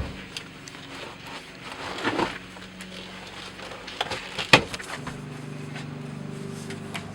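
Car floor carpet and interior trim being pulled out by hand: scattered clicks, knocks and scraping, with a sharp knock or two about four and a half seconds in. A steady low hum sets in about five seconds in.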